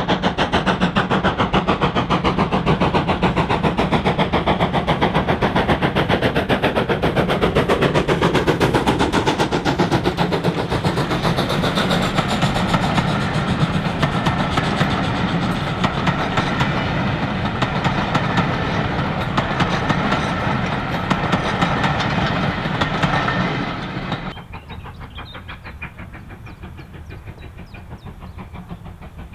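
A train running past at speed, with a fast, even rhythmic clatter of wheels on the rails. About 24 seconds in the sound drops abruptly to a much quieter level.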